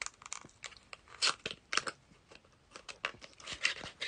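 Sellotape being picked and peeled off a slim cardboard lip gloss carton, then the carton opened and the tube slid out: a string of irregular scratchy clicks and crinkles, sharpest about a second in and near the end.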